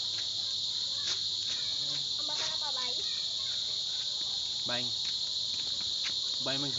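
A steady, high-pitched insect chorus of crickets or cicadas, with a few brief, faint calls from voices or animals in the background.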